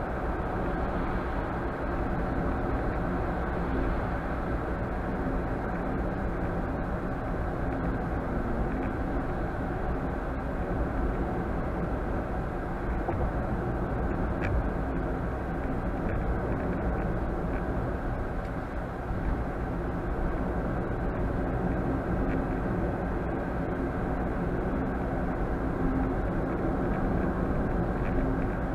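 Steady engine and road noise of a car being driven, heard inside the cabin through the dash cam's microphone, with a low, even hum and no sudden events.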